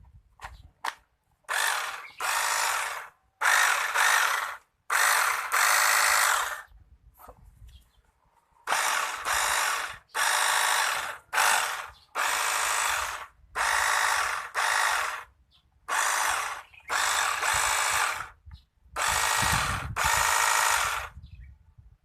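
Portable pressure washer running in short on-off bursts, about fifteen of them, each around a second long with brief gaps between.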